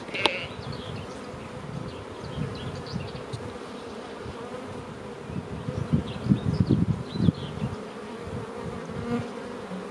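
Honeybees buzzing steadily while foraging, with a patch of low rumbling about six to seven seconds in.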